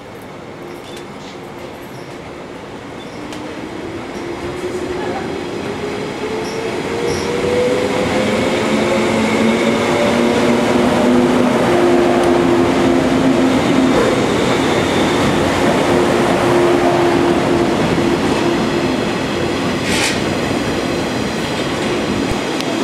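JR 185 series electric train pulling away and accelerating past. Its motor hum rises in pitch over the first several seconds and grows louder, then holds steady as the cars roll by. A single sharp clack comes near the end.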